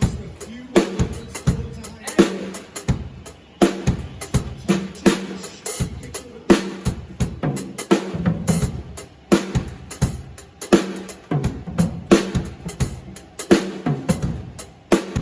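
Drum kit played in a groove: repeated strokes on the drums in a steady rhythm, with the drums ringing low between hits.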